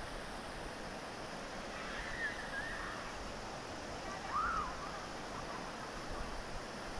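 Steady rush of flowing water, like a mountain stream. Short chirps from a bird come through about two seconds in, with a single rising-and-falling call about four and a half seconds in.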